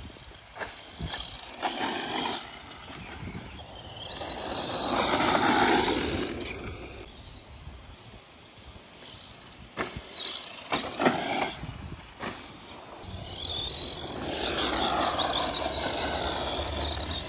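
Brushless electric motor of an HPI Jumpshot Flux RC truck whining up and down as it races over dirt jumps, with tyres scrabbling on loose dirt. It swells loud twice, a few seconds in and again near the end, and a cluster of sharp knocks comes about ten seconds in.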